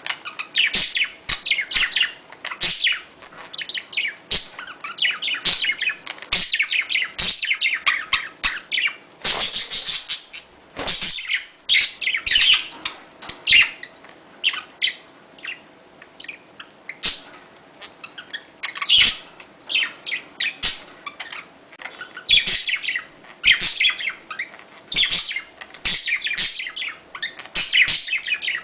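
Budgerigars chattering: fast runs of high chirps and warbles in short spurts with brief pauses, the kind of budgie chatter played to bring budgies into breeding condition.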